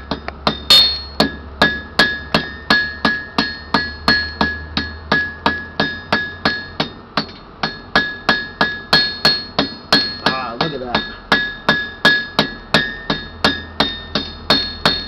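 Blacksmith's hand hammer striking hot steel bar on an anvil at about three blows a second, each blow with a short ring from the anvil. The hammering rounds off the corners of square stock.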